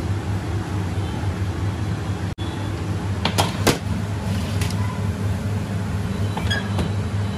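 A steady, slightly pulsing low mechanical hum, with a few short sharp clatters about three to four seconds in and once more later.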